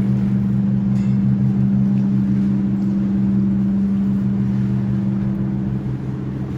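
An engine running steadily at low revs, giving an even, low hum.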